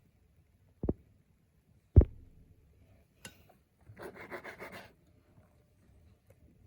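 Two dull low thumps about a second apart, the second the louder. A moment later comes about a second of quick, rhythmic rubbing, eight to ten strokes a second.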